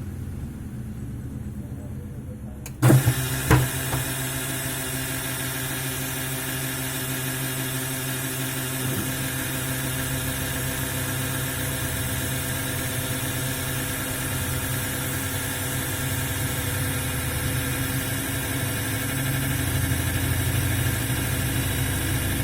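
Videocon VNA811 washing machine running in its spin cycle with a steady mechanical hum made of several tones, noise the owner blames on a faulty gearbox. Two loud knocks come about three seconds in, after which the machine runs on steadily and a little louder.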